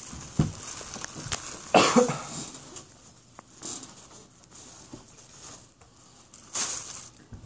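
Scattered small knocks and rustles in a quiet classroom, with a short, louder noise about two seconds in and another near the end.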